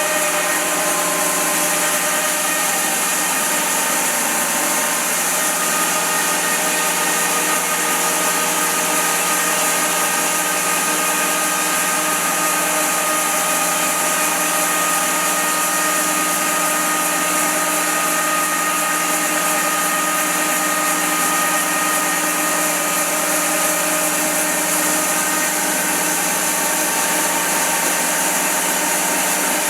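Wide-cut bandsaw mill running steadily through a cut in a very wide silver maple round, its drive hum and blade noise holding at one level throughout.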